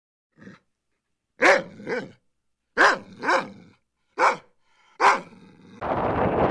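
A dog barking: a faint bark, then about six loud barks, several in quick pairs, each bending in pitch. A steady rushing noise like wind on the microphone starts near the end.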